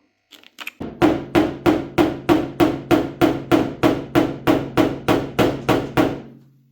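Hammer tapping down a high spot on a Seat Mii's bodywork, a steady run of about eighteen even strikes at roughly three a second that stops a little before the end.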